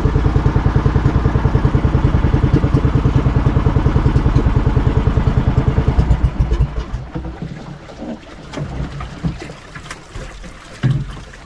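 Outrigger boat's engine running with a rapid, even throb, then stopping about six seconds in. Quieter irregular water and handling sounds follow, with one sharp knock near the end.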